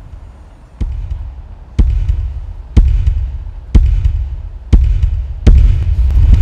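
Film-score pulse: deep bass hits about once a second, each followed by a low rumbling tail, with the last hit coming sooner than the rest.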